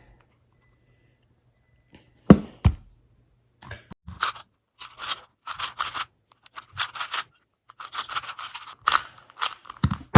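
2x2 plastic speed cube being turned quickly in a timed solve: short bursts of scraping plastic clicks, several a second. A sharp knock comes about two seconds in, before the turning starts.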